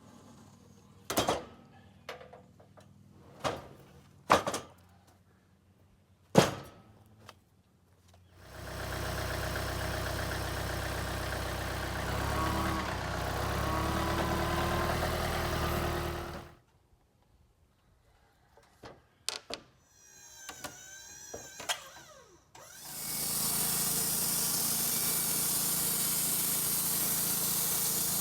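Wood-Mizer LT35 band sawmill running in two long stretches, its band blade sawing a chunk of cedar. A handful of sharp knocks and clicks come in the first few seconds and again in the pause between the runs.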